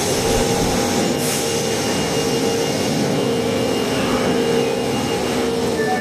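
Subway train standing at the platform, its equipment giving a steady hum with a short air hiss about a second in.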